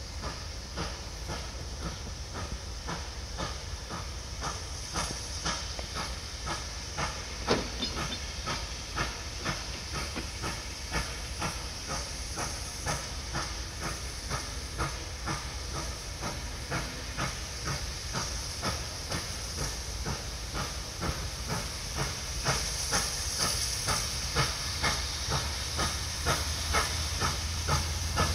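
NSW C38-class steam locomotive 3801 working slowly on a short trial run after rework: a steady rhythm of exhaust beats, about two to three a second, over a constant hiss of steam. The beats grow louder in the last few seconds as it draws closer, and there is one sharper knock about seven seconds in.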